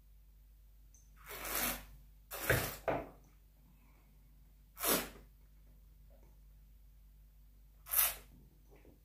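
A wine taster's mouth and breath noises while tasting a sip of red wine: a slurp about a second in, a louder noisy burst with a low knock around two and a half seconds, then two short sharp breaths out, the last near the end.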